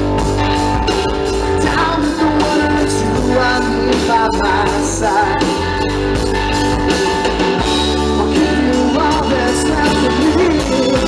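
Live blues-rock band playing an instrumental stretch between sung choruses: electric guitar with a wavering lead line over electric bass and a drum kit keeping a steady beat.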